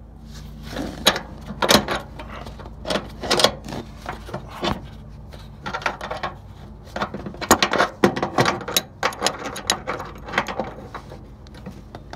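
Wrenches clicking and clanking against brass flare nuts as the refrigerant line fittings on a mini-split's service valves are undone, in irregular metallic clicks and scrapes over a steady low hum.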